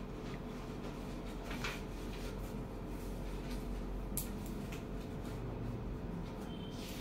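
Paper forms handled and a pen writing a signature on them: a few short, scattered rustles and scratches over a steady low room hum.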